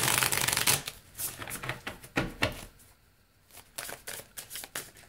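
A deck of tarot cards being shuffled by hand: a quick run of rapid card flicks at the start, then scattered shorter flicks and slides of the cards, with a brief lull about three seconds in before the shuffling picks up again.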